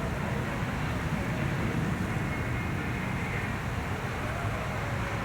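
Steady low rumble of outdoor wind and road traffic, with no sudden sounds.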